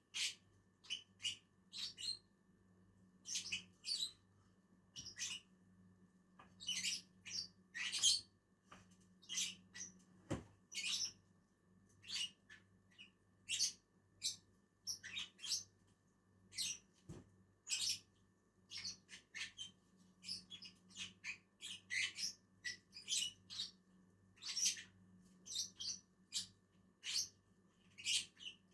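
Lovebirds chirping in short, high, irregular calls, often a few a second, with a couple of sharp clicks and a faint steady hum underneath.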